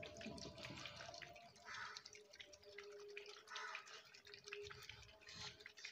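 Faint, irregular sloshing of salt water inside the cells of a Volta motorcycle battery being shaken by hand, rinsing the plates to loosen carbon and rust.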